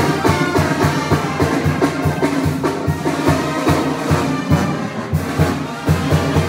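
Tamborazo band playing: brass instruments over a steady drum beat.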